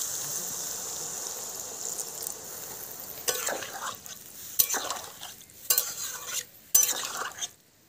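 Water poured into a hot pan of fried potato and raw banana sizzles with a steady hiss that slowly dies down. From about three seconds in, a metal spatula stirs the curry, scraping against the pan about four times, roughly a second apart.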